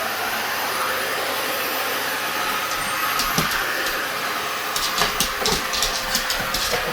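Vacuum cleaner running steadily with a constant whooshing hiss, joined by a scatter of sharp clicks and rattles from about halfway through.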